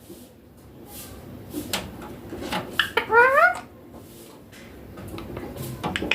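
Young Indian ringneck parakeet giving one rising, wavering squawk about three seconds in, with a few light clicks before it.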